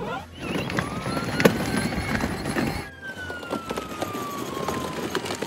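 Police siren wailing, its pitch climbing slowly and then sliding slowly down, over a rough noise with scattered clicks and knocks.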